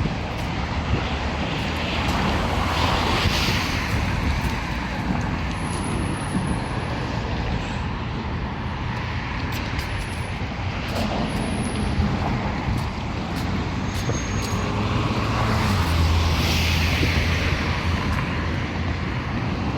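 Steady outdoor rumble and hiss, swelling louder about three seconds in and again near the end.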